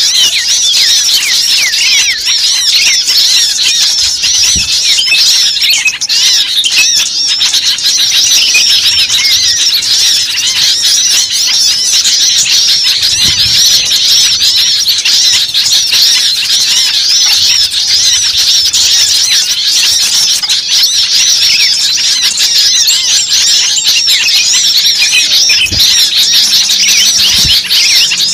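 Many small birds chirping and squeaking at once in a dense, continuous chorus of high-pitched overlapping calls.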